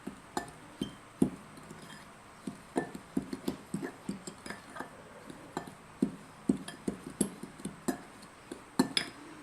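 Spoon clinking and scraping against a mixing bowl while stirring a dry powder mix, a few irregular knocks a second.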